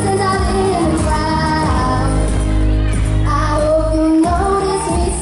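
A boy singing a pop song live into a microphone, amplified, with acoustic guitar accompaniment and a strong bass underneath.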